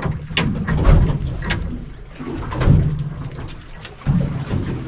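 Small boat on the water: scattered sharp knocks and clicks on deck over a low rumble that swells and fades several times.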